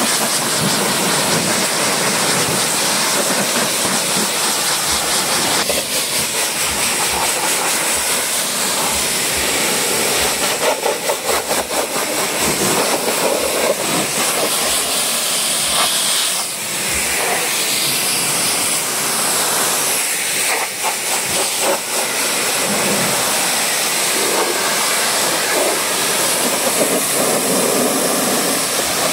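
High-pressure washer jet spraying water onto a foamed car's bodywork to rinse off the foam: a loud, steady hiss of spray whose tone shifts now and then as the jet moves over the panels and the ground.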